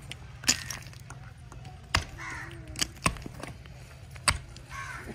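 A hand rammer (durmat), a long steel bar with a flat iron foot, pounding crushed brick into soft soil. About six sharp thuds land at uneven intervals as the soil and brick rubble are packed hard.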